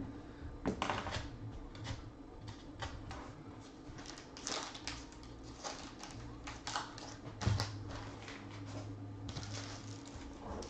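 Hands handling a hard plastic trading-card holder and a cloth drawstring pouch on a tabletop: irregular clicks, taps and rustling, with a few sharper knocks.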